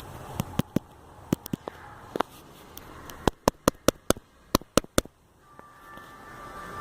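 A series of sharp clicks and taps of hand tools on metal engine parts, irregular at first and then quicker for a couple of seconds. Near the end, after a short gap, a faint steady tone fades in.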